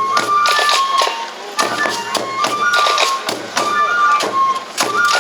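Shishi odori (deer dance) music: a bamboo flute playing high held notes over repeated drum strokes, with voices mixed in.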